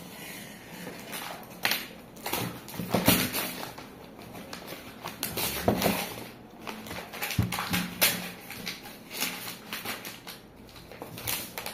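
Paper wrapping being unfolded and pulled open by hand, with irregular rustling and crinkling and a few handling knocks.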